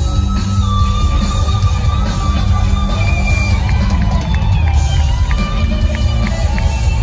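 Live rock band recorded from the audience: electric guitar playing long held lead notes, moving to higher notes about three seconds in, over a heavy low end of bass and drums.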